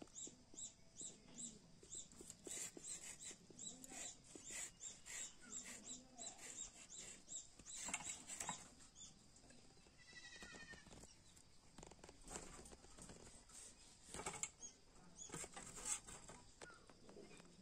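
Faint scraping and soft cuts of green mango being peeled and sliced against a boti's curved iron blade. Behind them, animal and bird calls, including a run of quick repeated high chirps in the first few seconds.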